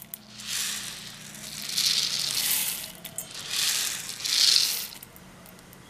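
Dry toor dal (split pigeon peas) poured from a plastic jar into a stainless steel pot, the lentils pouring onto the steel in four bursts before dying away about five seconds in.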